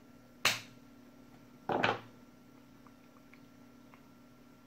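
Hands handling test gear on a silicone work mat: one sharp tap about half a second in, then a short clatter, then a few faint ticks, over a faint steady hum.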